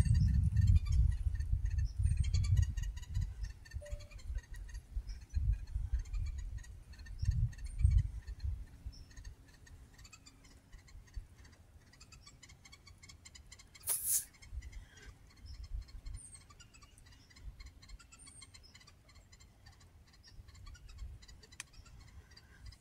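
Rapid, repeated chattering from an agitated animal in the woods, with a few short high chirps mixed in. The hiker takes it for an angry bird or a squirrel. Low rumbling bumps on the microphone in the first several seconds, and one sharp click about 14 seconds in.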